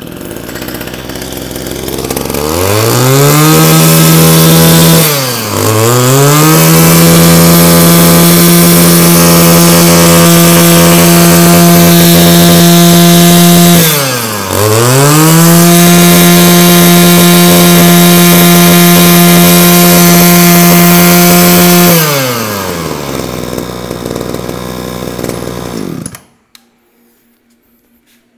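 Kawasaki 24 cc two-stroke brush cutter engine on a test run: revved up to a high, steady scream three times, each held for several seconds, with two brief drops in revs between. It then falls back to idle and is shut off abruptly near the end. The seller judges it to be running very well.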